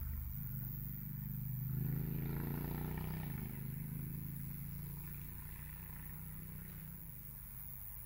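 A motor vehicle driving past. Its engine is loudest about two to three seconds in, its pitch drops as it goes by, and then it fades away.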